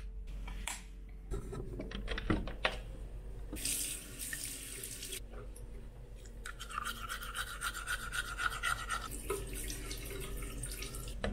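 A few clicks, a tap running briefly, then the rhythmic scrubbing of teeth being brushed.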